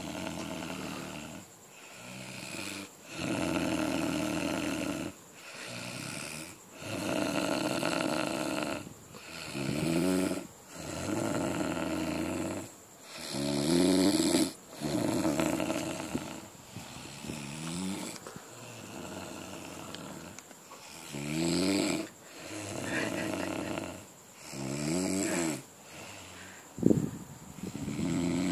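A man snoring loudly and rhythmically: each breath in and out rasps, about one breath every three to four seconds. A short sharp noise comes near the end.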